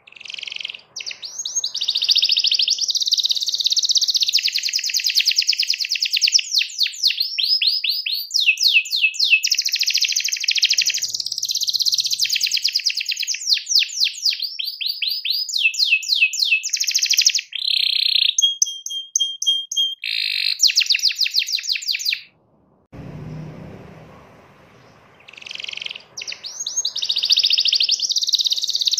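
Domestic canary singing a long, fast song of rapid trills and rolling notes, with a short held whistle past the middle. The song breaks off for about three seconds near the end, leaving a faint low rumble, then starts again.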